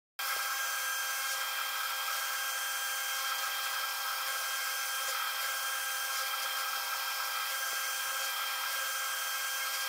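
Milling machine spindle running, with an end mill cutting a tooth slot into a metal dog-clutch blank: a steady, even whine with several held tones. It cuts in abruptly just after the start.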